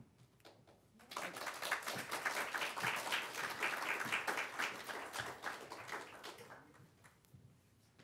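Audience applauding, starting about a second in, then dying away over the last two seconds.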